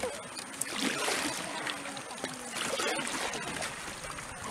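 Water splashing and trickling as a bamboo pole is stroked through the water beside a bamboo raft.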